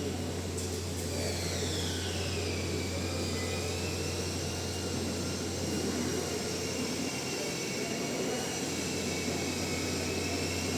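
Lathe running: a steady low motor hum with a high whine that glides down in pitch about a second in, then holds steady.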